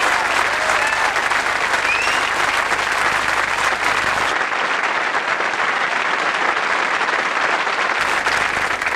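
Large theatre audience applauding steadily, dying down right at the end.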